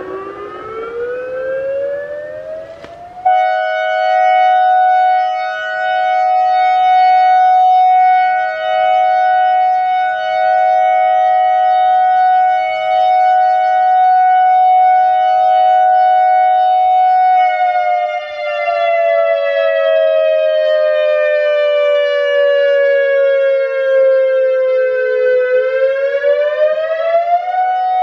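ACA Alertronic AR-1600 electronic siren sounding a clean, two-pitch tone. It sweeps up and jumps louder about three seconds in, then holds a steady tone for about fourteen seconds. It then falls slowly in pitch for about eight seconds and rises quickly back to the steady tone near the end.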